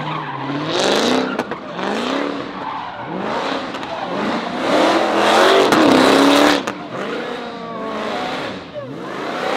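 Car engines revving, with gliding whines that may be tyre squeal, amid loud overlapping voices. The sound swells loudest about halfway through.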